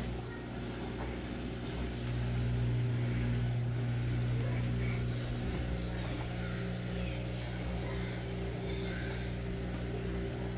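Samsung washer running its short spin-only cycle: a steady motor hum with several fixed low tones, growing louder about two seconds in as the drum spins up.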